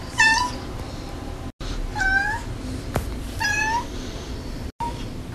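A young black-and-white tuxedo cat meowing three times, in short, high-pitched meows about one to two seconds apart.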